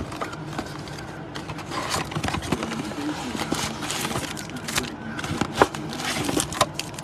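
Cardboard USA Baseball Stars & Stripes mega box being handled and opened, its foil card packs sliding out onto a mat: crinkling and scraping of packaging, with a couple of sharp clicks near the end.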